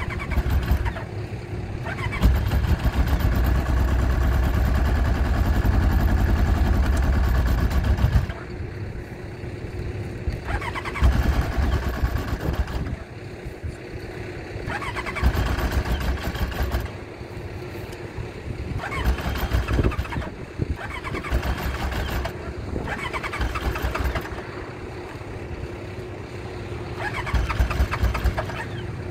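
2003 Yamaha RX1 snowmobile's 1000cc four-cylinder four-stroke engine running: held at a steady raised speed for several seconds, then idling lower with about five short blips of the throttle.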